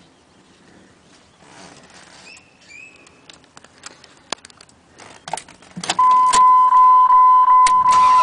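Keys jangling and light clicks as the ignition key of a 2002 Dodge Ram is worked, then, about six seconds in, a loud steady electronic warning tone from the dashboard as the ignition is switched on, pulsing faintly a few times a second.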